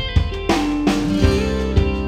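Background music with a steady drum beat, about two beats a second, under a held melody line that steps in pitch.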